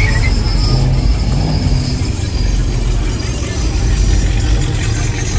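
Cars and trucks running amid a loud, steady mix of road noise and bass-heavy music.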